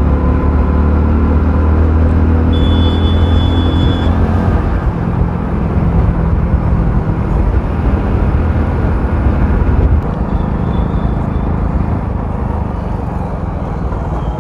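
Hero Splendor motorcycle's single-cylinder four-stroke engine running steadily at cruising speed, with wind and road noise. A short high-pitched tone sounds for about a second and a half near three seconds in, and the engine note eases off about ten seconds in.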